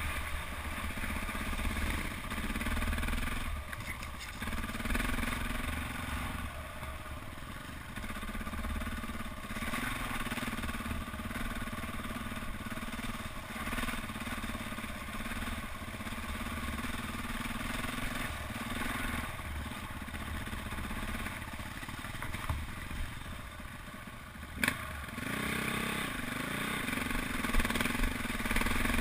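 KTM 400 EXC's single-cylinder four-stroke engine running as the trail bike rides a muddy, rutted lane, the revs rising and falling with the throttle. A single sharp knock near the end.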